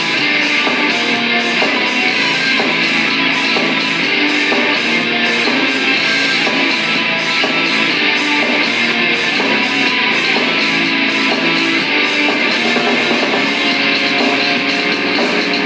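Rock music with strummed guitar and a steady beat, no vocals.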